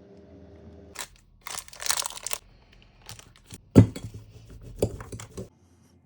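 Crinkling, rustling handling noises with scattered clicks and one sharp knock near the middle, as small objects or materials are handled.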